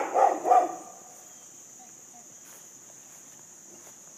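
Steady high-pitched drone of insects in the yard, with three short, loud vocal calls in the first second.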